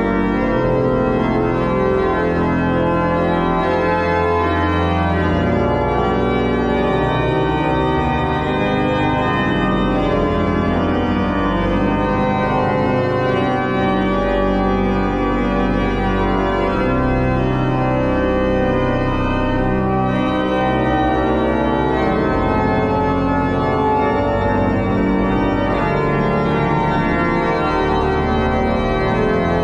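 The 1809 Meere pipe organ, a two-manual mechanical-action organ, playing loud sustained chords over a deep pedal bass that moves every second or two.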